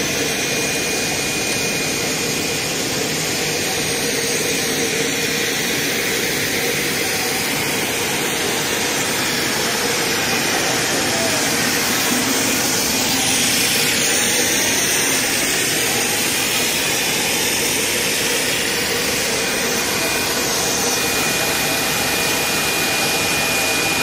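EVA spiral hose extrusion line running: a steady, even rush of machine noise with a thin, constant high whine through it.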